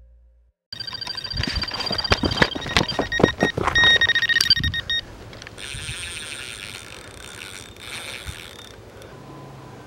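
Carp bite alarm sounding a fast, continuous run of high beeps, mixed with rapid clicking, as a fish takes line. The beeping cuts off about five seconds in and a fainter steady whirring follows for a few seconds.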